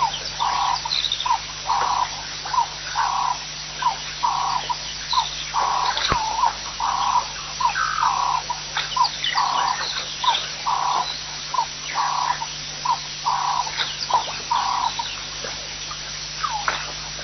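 A wild animal calling over and over, about two notes a second, short and longer notes alternating, stopping about fifteen seconds in; scattered short high chirps follow, over a faint steady hum.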